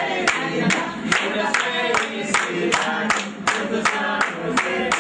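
A small group of people singing together while clapping hands in time, a little under three claps a second.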